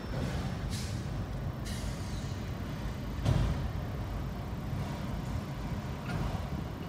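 Autorack freight cars of a slowly moving train rolling over the crossing, heard from inside a car: a steady low rumble with a few short, sharp noises, the loudest a heavy knock about three seconds in.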